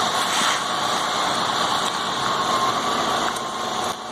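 Concrete mixer truck's engine running steadily, a continuous mechanical hum.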